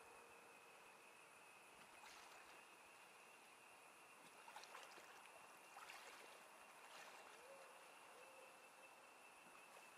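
Near silence: faint night ambience, a steady hiss with a thin high steady tone, and a few soft faint ticks between about two and seven seconds in.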